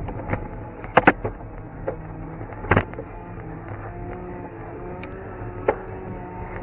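Bicycle rolling along a paved street, heard from a handlebar-mounted camera: steady tyre and road rumble, with a few sharp knocks and rattles as the bike goes over bumps. There is a quick pair of knocks about a second in, and single knocks near three and six seconds.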